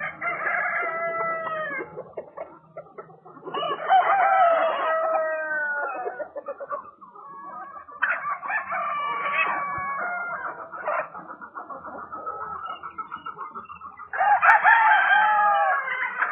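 Roosters crowing, four long crows a few seconds apart, with a run of rapid clucking between the last two.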